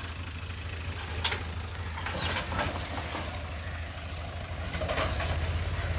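Ghazi tractor's diesel engine running with a steady low hum, getting louder about five seconds in.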